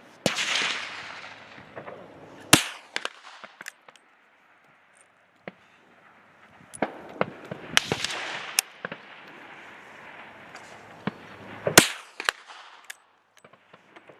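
Rifle shots on an outdoor range, several sharp reports a few seconds apart, each trailing off in a rolling echo, with small clicks between them.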